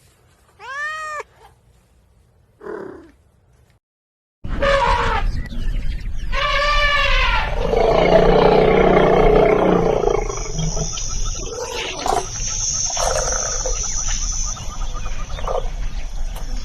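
A cat meows once about a second in. After a brief silence, a different animal recording starts: repeated loud calls from a large wild animal over steady background noise.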